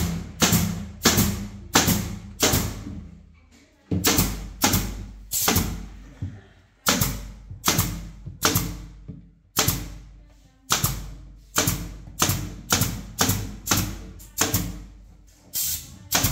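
Pneumatic brad nailer, run off an air compressor, firing nail after nail into teak plywood wall panelling. The shots are sharp and come about one to two a second, with a few brief pauses.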